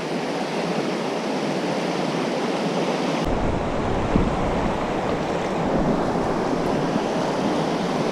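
Rushing whitewater of the Nantahala River running high: a steady, dense rush of rapids, turning fuller and deeper about three seconds in.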